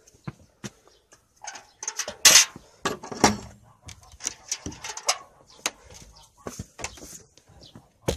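Irregular knocks, clatter and rustling, loudest a little over two seconds in.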